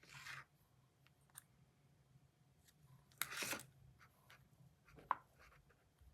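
Faint handling noises from a small fidget toy's pieces being worked into place: two short scraping rustles about three seconds apart and a sharp click about five seconds in.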